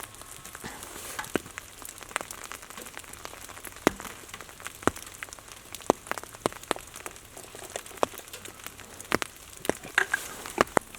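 Wet snow and drips pattering on nearby surfaces: a faint steady hiss with irregular sharp ticks.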